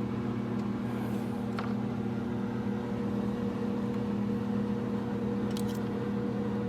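Steady low hum of a running machine, with a couple of faint clicks.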